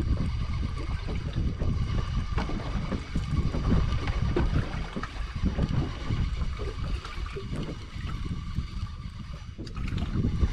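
Water lapping and gurgling against the hull of a small fishing boat, with wind rumbling on the microphone.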